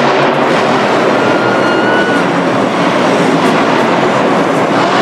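Monster truck engine running loud and steady, a dense, unbroken engine noise.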